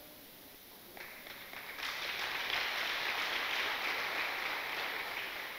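Congregation applauding, starting about a second in, swelling, then fading away near the end.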